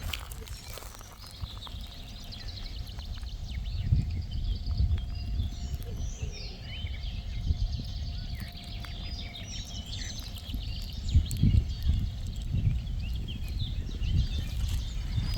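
Small songbirds chirping and twittering in quick, varied notes, over a low gusting rumble of wind on the microphone.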